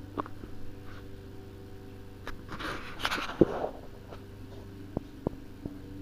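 A steady low hum with a higher steady tone above it: the unexplained noise that keeps recurring in the room. About halfway through, a second of rustling with a sharp click, and a few separate clicks later on.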